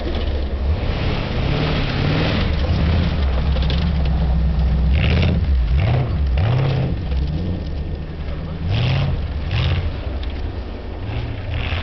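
Car engine revving up and down repeatedly under hard acceleration as the car drives through a snow-covered cone course, with several short bursts of hiss mixed in.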